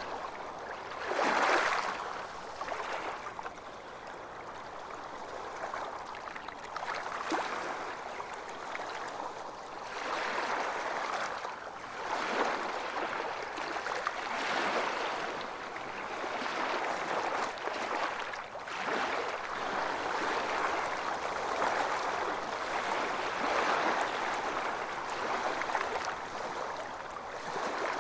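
Waves washing onto a beach, a continuous rush of water that swells and eases every few seconds, with one sharper surge about a second and a half in.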